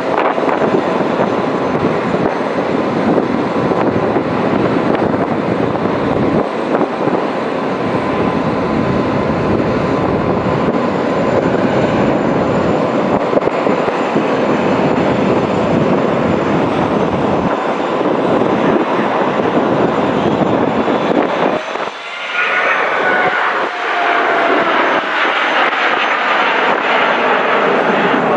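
Boeing 777X's twin GE9X turbofans, loud and steady as the airliner flies a display pass overhead. About three quarters of the way through the sound dips briefly, then a whine comes in that falls in pitch.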